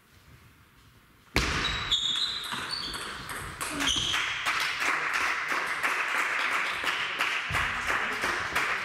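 Near quiet, then a sudden burst of clapping and cheering about a second and a half in, going on as steady applause after a table tennis rally ends.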